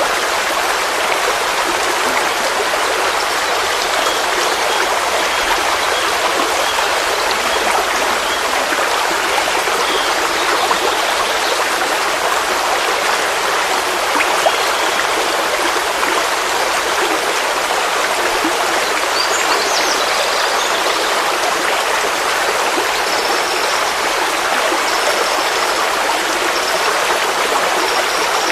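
Forest stream flowing steadily over rocks, an even rushing of water with no breaks. A few faint high chirps sound over it in the second half.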